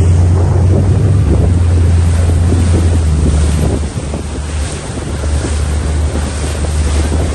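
Motorboat running fast across choppy water: wind buffeting the microphone over a steady low engine drone, with the rush and slap of water against the hull. It drops a little in level about four seconds in.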